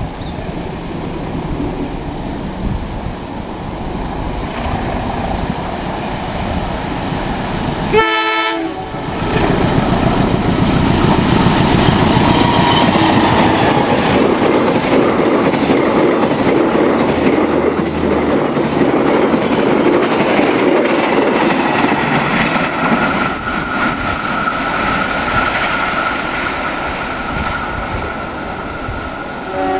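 Diesel-hauled passenger train passing close at speed: locomotive engine and wheel-on-rail noise with a clickety-clack of the rail joints, loudest from about nine seconds in after a brief break. A steady high tone joins for the last seven seconds or so.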